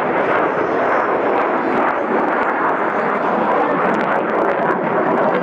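F-16 Fighting Falcon jet: a loud, steady rush of jet engine noise as it climbs and pulls over the top of a loop.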